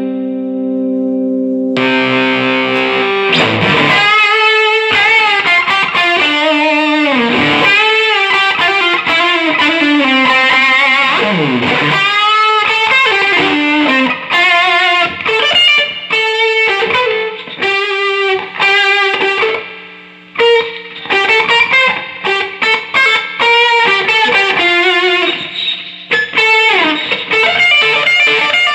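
Electric guitar played through a mid-90s Fender Hot Rod Deville 2x12 tube combo amp, fresh from a repair with new 6L6GC power tubes, 12AX7 preamp tubes and filter capacitors. A held chord rings for about two seconds, then a fast lead line with many string bends and slides.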